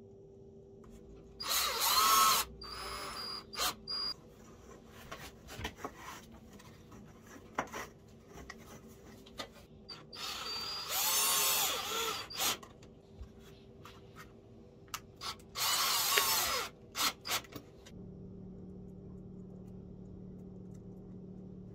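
Cordless drill driving screws through a thin bent wooden strip into the edge of a round wooden disc: three main runs, each rising and falling in pitch with the trigger, with short trigger blips and knocks between them.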